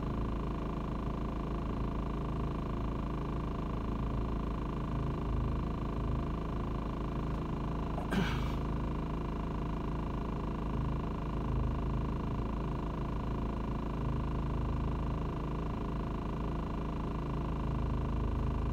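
Steady low hum inside a van's cabin, with a single short click about eight seconds in.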